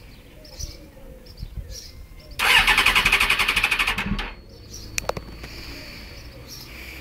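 2000 Suzuki GSX-R750's electric starter cranking its inline-four engine for about two seconds, a fast even pulsing churn, then stopping without the engine catching. A couple of sharp clicks follow about a second later.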